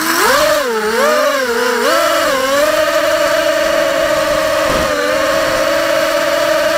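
FPV quadcopter's electric motors and propellers spinning up suddenly for takeoff. A loud buzzing whine wavers up and down in pitch with the throttle for the first two seconds or so, then holds a steady pitch in flight.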